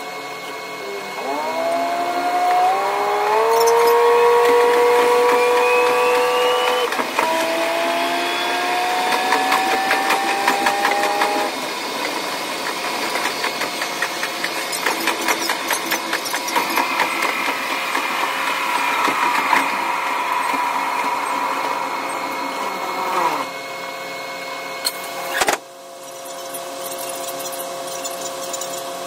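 KiHa 185 diesel railcar heard from the cab with the playback sped up. The engine note climbs in pitch twice as the train accelerates, over a fast clatter of wheels on rail joints, then settles into a steady run. A brief sharp break comes near the end.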